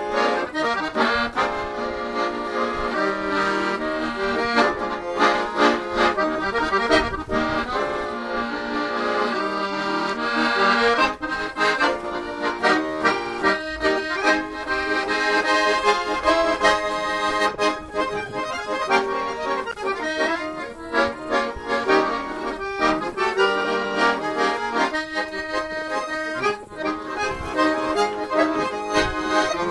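Instrumental background music, a traditional-style tune with held chords and a steady beat.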